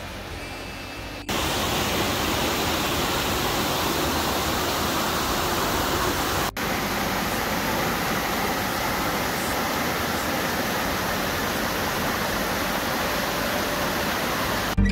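A steady, even rushing noise that jumps louder abruptly about a second in and breaks off for an instant around the middle.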